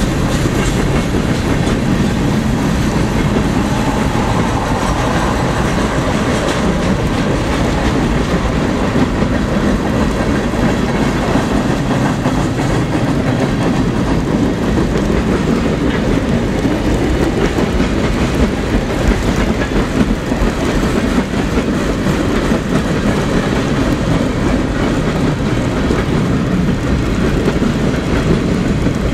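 Freight train cars rolling past close by, their steel wheels running on the rails in a steady, loud, unbroken noise.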